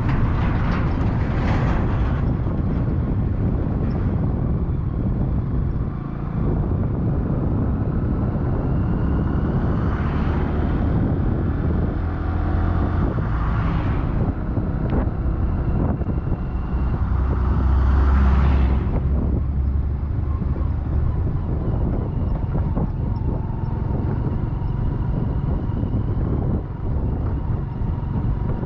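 Road traffic: a steady low vehicle rumble, with about four other vehicles swelling up and passing by, the loudest about two thirds of the way through.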